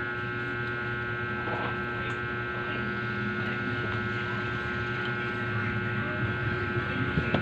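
Steady electrical hum made of several fixed tones, with a sharp click near the end.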